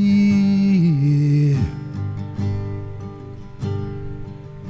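A singer holds the last word of a sung line over strummed acoustic guitar, the note dropping in pitch about a second in and ending before halfway; the guitar strumming then carries on alone.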